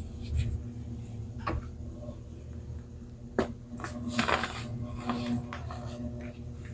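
Baking soda being scraped and crunched with a utensil in a dish, in scattered sharp clicks and short crumbly scrapes. The sounds come thicker in the second half.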